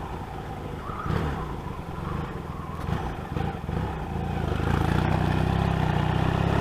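Motorcycle engine running under way, with a few short changes of pitch early on. The engine picks up and grows louder about four and a half seconds in as the throttle opens, then holds steady.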